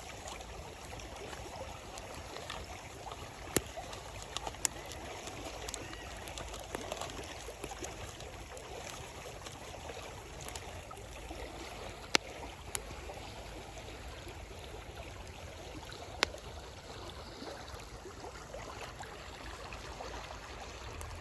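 A river babbling steadily, with a campfire's burning wood giving sharp crackles and pops every few seconds.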